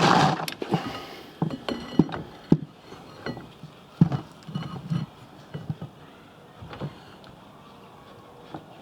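Clatter of metal tools and brake parts being worked by hand on a van's rear brake caliper while the pads are fitted: a burst of rapid knocks at the start, then scattered clicks and taps that die away after about seven seconds.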